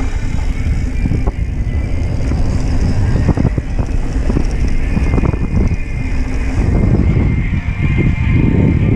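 A mountain bike descending a dirt trail: wind rumbling on the camera's microphone, with repeated knocks and rattles from the bike as it runs over bumps, a little louder toward the end.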